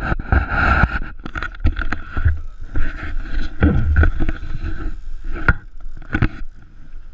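Wind buffeting the microphone and choppy waves slapping against a small boat's hull, in uneven gusts of low rumble. A steady thin high whine runs underneath, with a few sharp knocks against the boat near the end.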